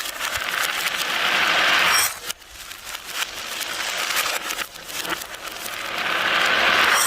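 Marbles rolling down a wooden Haba marble-run track: a clattering rolling sound full of small clicks that grows louder and then stops abruptly, twice, about two seconds in and again near the end.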